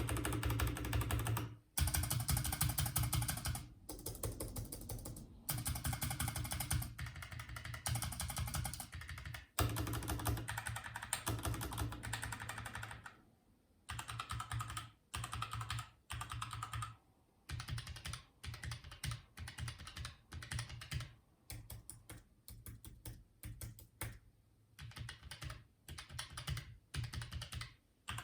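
Typing on a computer keyboard in fast bursts of key clicks. About halfway through, the bursts become shorter and sparser, with a different click sound, as if a different keyboard takes over.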